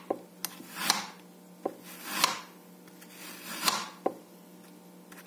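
A handheld blade shaving thin slices off a peeled raw apple half on a wooden cutting board: three short scraping strokes about a second and a half apart, with a few light knocks against the board between them.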